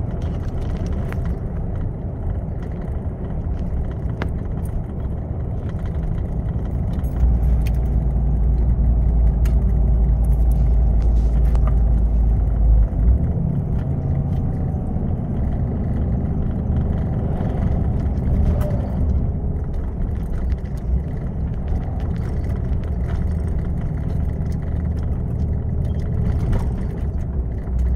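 Heavy truck driving, heard from inside the cab: a steady diesel engine drone and road rumble, with small rattles. The deep drone swells for several seconds partway through.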